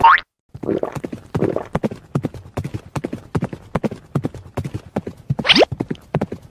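Cartoon sound effect of horse hooves clip-clopping rapidly on a wooden floor. A quick sound rising in pitch cuts in a bit more than five seconds in.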